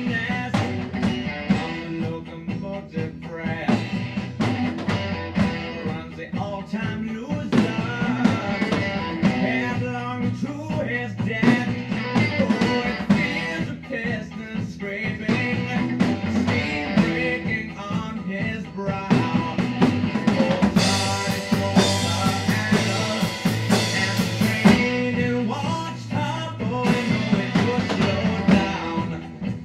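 Rock music recording with a live acoustic drum kit played along to it, the drummer's hits and cymbals mixed over the song.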